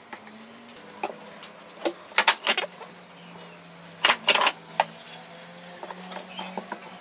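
Workshop handling noises: two clusters of sharp knocks and clatters about two and four seconds in, with fainter ticks between, over a steady low hum.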